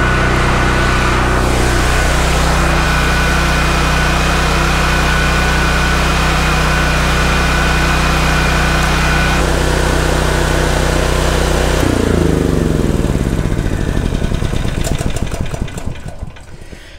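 Black Max 7000-watt portable generator's Honda engine running steadily, then slowing about twelve seconds in and winding down to a stop over the last few seconds as it is shut off.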